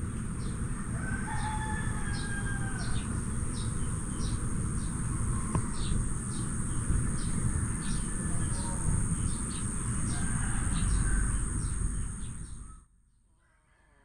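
Outdoor ambience: a rooster crowing, birds giving repeated short chirps and a steady high insect buzz, over a low rumble. It all cuts off suddenly near the end.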